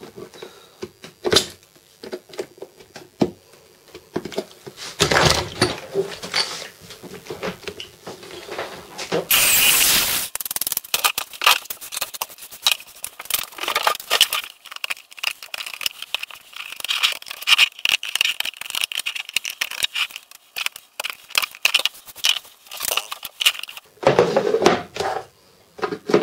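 Utility knife scraping and trimming the edges of holes drilled in a hard plastic box lid: a long run of quick, rough scraping strokes mixed with clicks and knocks as the plastic part is handled. A louder rushing noise lasts about a second, just after nine seconds in.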